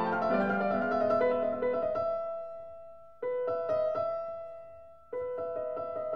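Background piano music: a flowing run of notes, then slow chords struck about three seconds in and again about five seconds in, each left to fade away.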